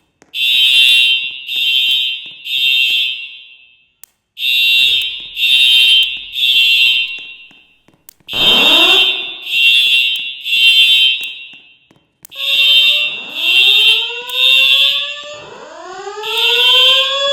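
Fire alarm horns sounding the temporal-three evacuation signal: three loud, high beeps, a pause, then three more, repeating. From about halfway, rising whooping sweeps also sound alongside the beeps.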